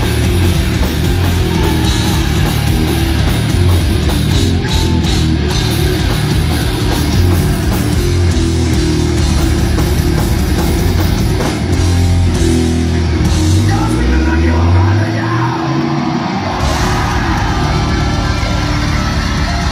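A death metal band playing live: heavily distorted guitars, bass and drums at full volume, with vocals. About two-thirds of the way through, the low notes rise in a slide and the bottom end drops out for a couple of seconds before the full band comes back in.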